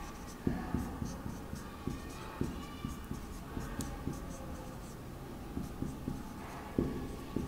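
Marker pen writing on a whiteboard: a run of short, irregular strokes and taps.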